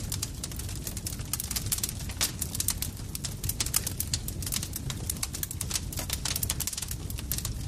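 Campfire crackling: dense, irregular sharp pops and snaps over a steady low rumble of the burning fire.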